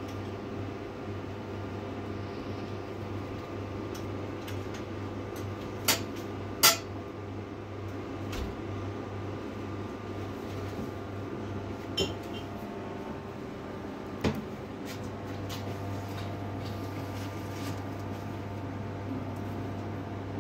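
Steady low hum of shop refrigerators, broken four times by sharp clinks of glass bottles as drinks are handled at a display fridge: two about six and seven seconds in, then single clinks near twelve and fourteen seconds.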